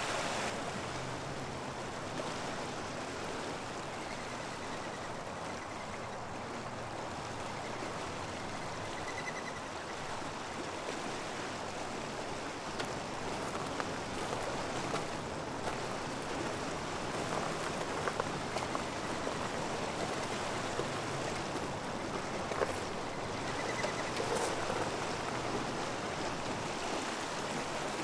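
Steady rushing of a fast-flowing river in flood, a continuous even wash of water noise, with a few faint high chirps.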